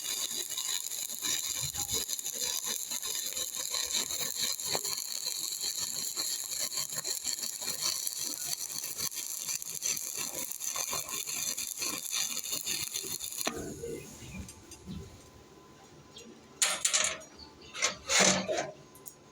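Stick-welding arc of a 2.5 mm E7018 electrode running a horizontal fillet weld: a steady crackling sizzle that cuts off abruptly about two-thirds of the way through. Near the end come two short loud noises.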